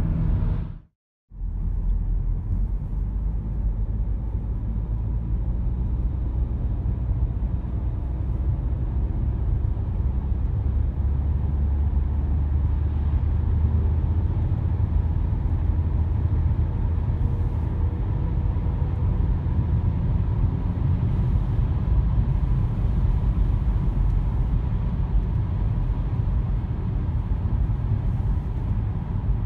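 Audi A5 B8 on the move: steady low road and tyre rumble with a faint steady hum. It drops out to silence for a moment about a second in, then carries on evenly.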